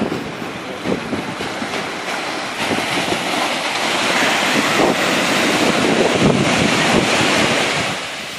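Small waves breaking and washing up a sandy shore, with wind buffeting the microphone. The surf grows louder a few seconds in and eases off near the end.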